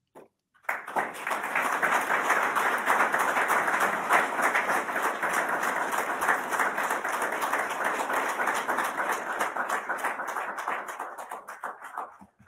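Audience applauding: many hands clapping, starting about a second in and dying away near the end.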